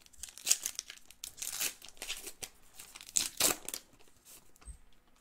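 Foil wrapper of a Topps Gold Label baseball card pack crinkling and tearing as it is ripped open by hand, in a run of sharp bursts, loudest about half a second in and again around three seconds in.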